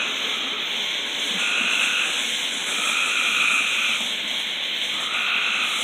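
Steady hiss from a burning ground fountain firework, under short repeating calls that each last under a second and come every second or so.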